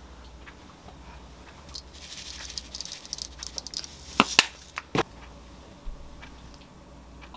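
Sesame seeds sprinkled over a bowl of tteokbokki, a light pattering of many tiny ticks lasting about two seconds, followed by a few sharp clicks around four to five seconds in.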